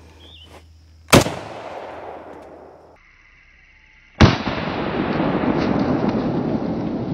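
Two shots from an FN FAL .308 battle rifle. The first rings out and fades over about two seconds. The second is followed by a loud, steady rushing noise that lasts several seconds and cuts off suddenly.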